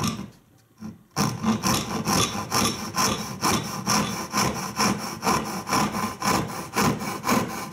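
Freshly sharpened and set Spear and Jackson dovetail saw cutting a test kerf in a pine board with quick, even strokes, starting about a second in. The cut is being started on the front teeth, which were filed with little rake.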